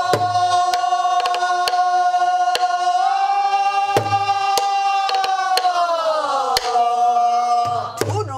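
A woman's pansori voice holds one long sung note, steady at first and then sliding down near the end. She accompanies herself on a buk barrel drum: deep strokes about every four seconds, with lighter stick taps between.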